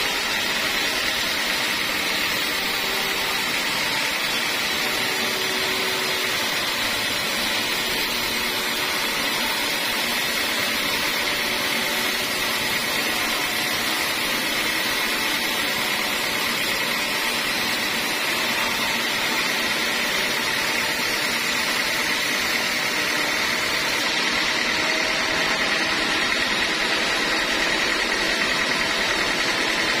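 Band sawmill running, its band blade cutting lengthwise through a block of teak: a steady whine over constant machine noise.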